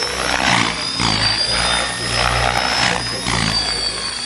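Align T-REX 600 radio-controlled helicopter flying aerobatics: a steady high whine under the rotor blades' whooshing, which swells and fades about once a second as it manoeuvres.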